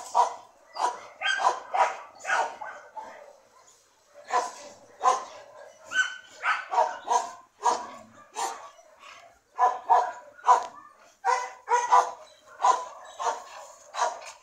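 A dog barking over and over, about two barks a second, with a short pause about three seconds in.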